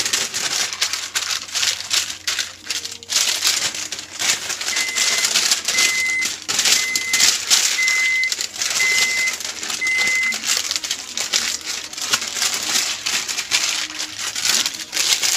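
Parchment paper crinkling and rustling as a soft dough is kneaded and folded inside it by hand. About five seconds in, an electronic beeper sounds six short beeps, about one a second.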